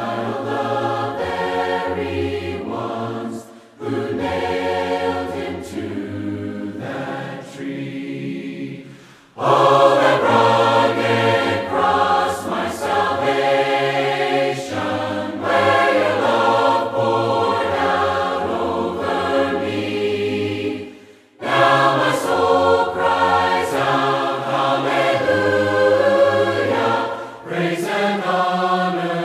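Unaccompanied mixed voices singing a hymn in four-part harmony, a cappella with no instruments. The singing pauses briefly between phrases, around 4, 9 and 21 seconds in, and is louder from about ten seconds in.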